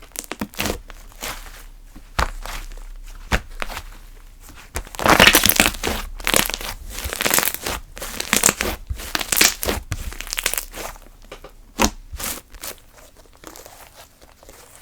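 Thick mango-smoothie slime being squeezed, stretched and poked by hand, giving sticky crackles and sharp little pops, densest for several seconds in the middle.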